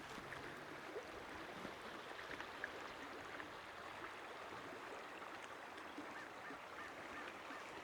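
Faint running creek water, with a bird calling several times in quick succession in the second half.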